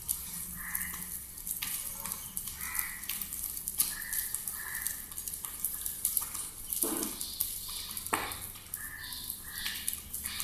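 Homa fire burning in a brick fire pit, a steady sizzling hiss with scattered sharp crackles and pops.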